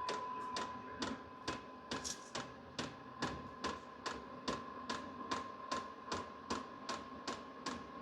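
Hcalory HBH2 diesel parking heater running as it warms up: the fuel dosing pump ticks about two and a half times a second over the steady whine of the blower fan.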